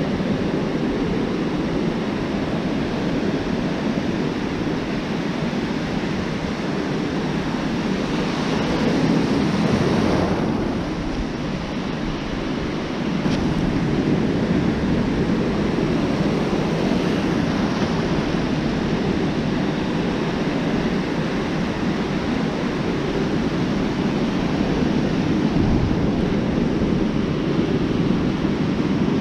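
Ocean surf breaking and washing on the beach, with wind on the microphone. The wash swells about eight to ten seconds in, then eases for a couple of seconds.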